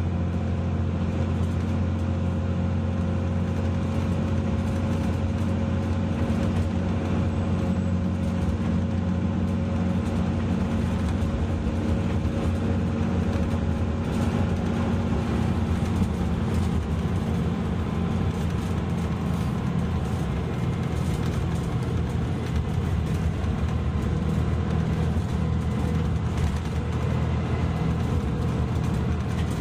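Mitsubishi Fuso Aero Star city bus running, its engine a steady low hum that changes little in pitch.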